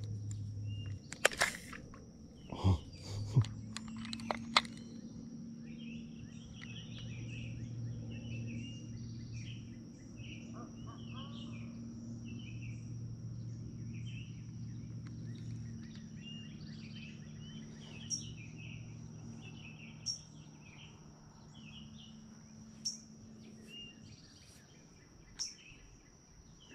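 Riverbank dusk ambience: birds chirping again and again over a steady high insect drone, with a low hum underneath for most of the time. A few sharp clicks in the first few seconds, from handling the fishing rod and spincast reel.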